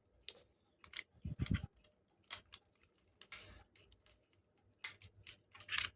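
Scattered light clicks and a couple of dull knocks from handling a small battery-powered mini cuckoo clock's case and battery compartment, at an uneven pace.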